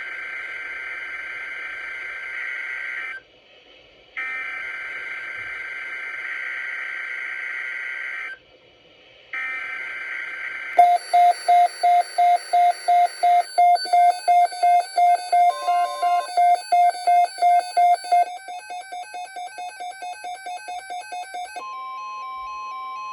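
Emergency Alert System data header: three long raspy, buzzing data bursts separated by short gaps. These are followed by an alarm beeping about three times a second, then faster, softer beeping, and finally a steady attention tone that starts near the end.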